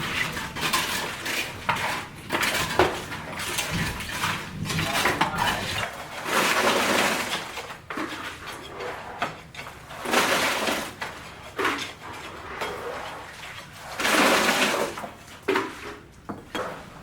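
Building work with hard materials: repeated clinks and knocks of metal and masonry, broken by three scraping, rasping sounds each about a second long.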